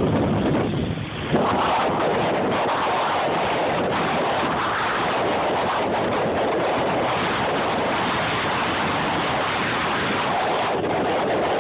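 Ocean surf breaking and washing up the beach, a steady rush of waves. Some wind buffets the microphone, mostly in the first second or so.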